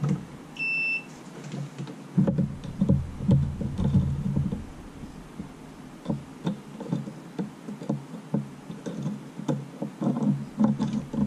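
A multimeter gives one short, steady electronic beep about half a second in. After it come irregular low taps and rubbing as test probes are worked over the ignition coil pack's terminals.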